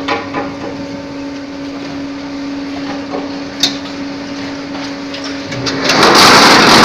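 Multi-block paving machine running: a steady motor hum with a sharp click a few seconds in, then a much louder, noisy din starts near the end.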